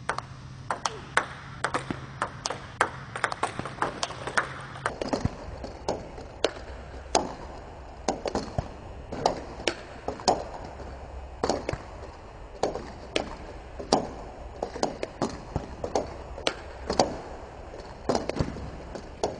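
Table tennis multi-ball drill: celluloid/plastic balls fed with backspin, bouncing on the table and struck with backhand topspin strokes, making a fast, irregular stream of sharp clicks and taps, several a second.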